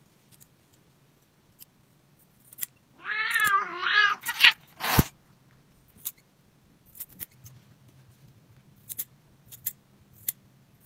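A cat yowling twice in quick succession about three seconds in while its claws are being clipped, then a sharp snap and a scatter of light clicks from the nail clippers.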